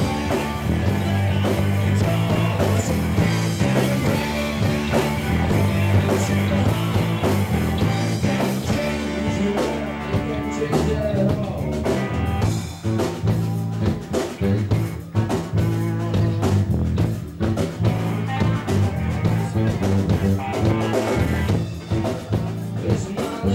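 A rock band playing live: electric guitar, bass guitar and drum kit together. The sound thins out about halfway through, leaving the drum hits more distinct.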